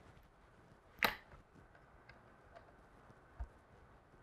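Hex-bit hand driver tightening the metal screws of a jack plate on a crossbow's scope rail: one sharp click about a second in, a few faint ticks, and a dull knock near the end.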